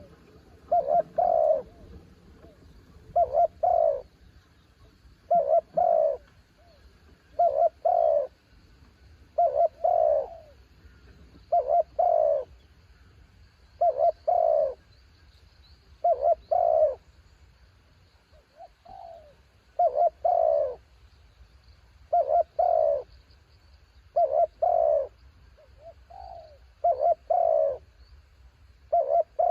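Spotted dove cooing: its short, rolling two-to-three-note phrase repeats steadily, about once every two seconds. One weaker phrase comes a little past halfway.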